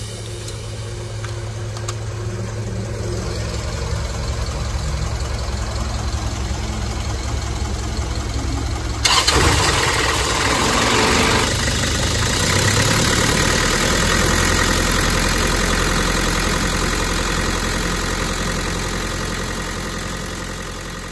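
The four-cylinder diesel engine of an Isuzu Elf NHR69 truck idling steadily. About nine seconds in it suddenly becomes louder and closer, heard from the open engine bay.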